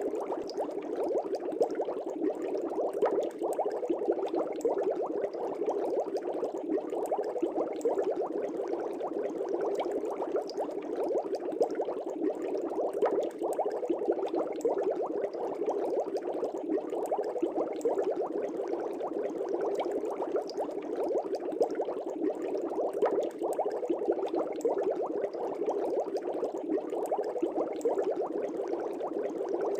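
Air bubbles streaming steadily up through aquarium water, a dense continuous bubbling with many small pops.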